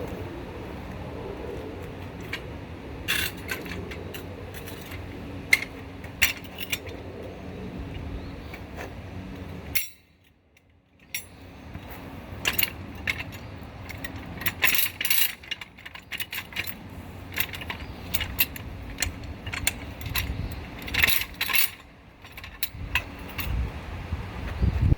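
Scattered sharp metal clinks and clanks of hand tools and wheel hardware being handled during trailer tire work, over a steady low rumble. The sound drops out almost completely for about a second near the middle.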